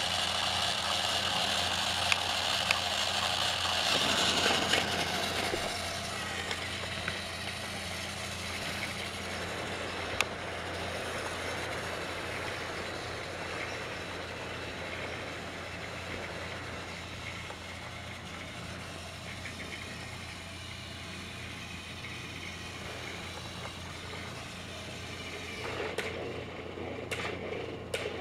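Battery-powered Trackmaster toy train motor whirring as the engine runs along plastic track, with a high whine loudest in the first few seconds before it settles to a quieter steady hum. Near the end there is a quick run of sharp clicks.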